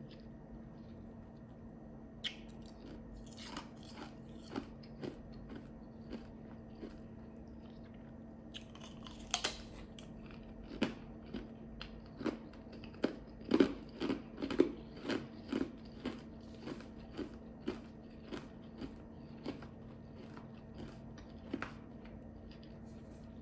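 Ice chips being bitten and chewed, crunching between the teeth: scattered crunches at first, a loud crunching bite about nine seconds in, then a quick run of crunches that slows and thins out toward the end. A faint steady hum runs underneath.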